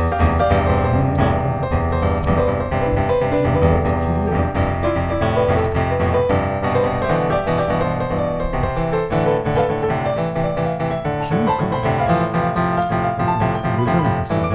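Piano music playing steadily, a run of sustained notes.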